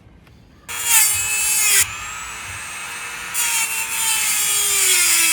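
A high-speed power tool cutting into the steel rear sprocket to enlarge its centre hole, starting under a second in. It whines harshly in two harder passes, its pitch sagging under the load.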